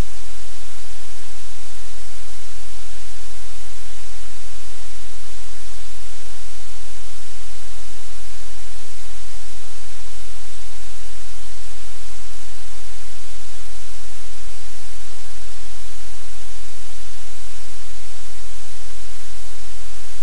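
Loud, steady hiss like static, unchanging throughout, with no other sound standing out above it.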